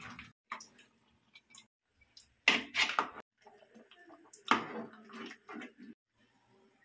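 Metal spoon stirring and clinking against metal cooking pots, with a quick cluster of sharp clanks about two and a half seconds in and another clank about four and a half seconds in.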